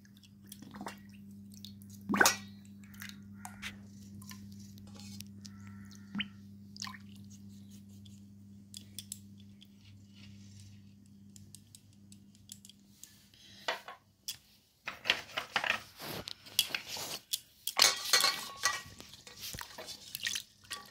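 Small clay cups and pots being washed by hand in a steel basin of water: water sloshing and dripping, with scattered clinks and knocks of the clay against the metal basin. A steady low hum runs under the first half, and the splashing and clattering grow busier and louder over the last few seconds.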